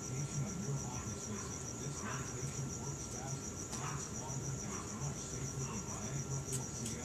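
Crickets chirping steadily, a continuous high pulsing trill.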